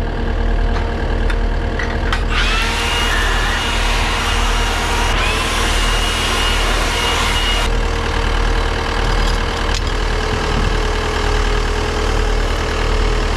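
Diesel engine of a CAT 259D3 compact track loader running steadily at idle. From about two seconds in to about eight seconds in, a louder hiss with a steady high whistle rides over it, then stops.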